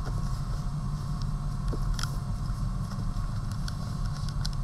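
Newspaper being folded and smoothed by hand on a tabletop: a few faint rustles and ticks, the clearest about two seconds in, over a steady low background hum.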